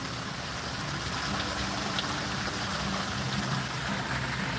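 Water from an outdoor fountain splashing and running steadily, with a faint low hum underneath.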